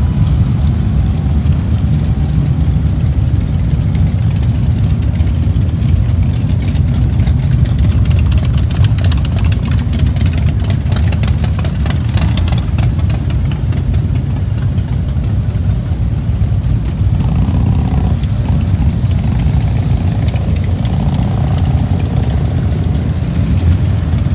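Many V-twin cruiser and touring motorcycles idling together in a pack, a steady, loud, deep engine rumble.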